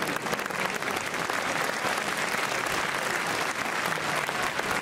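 Crowd of spectators applauding, a steady dense clapping.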